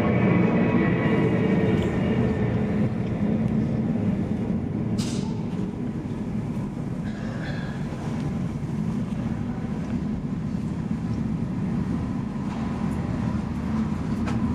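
Steady low rumble of a vehicle in motion, with faint high tones fading over the first few seconds and a short click about five seconds in.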